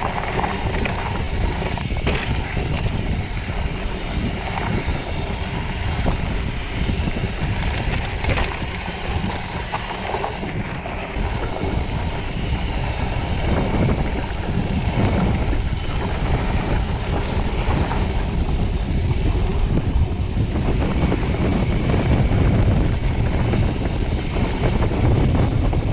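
Wind buffeting a chest- or helmet-mounted action camera's microphone while a mountain bike rolls fast down dirt singletrack, its tyres rumbling on the dirt, with frequent knocks and rattles from the rigid bike going over bumps.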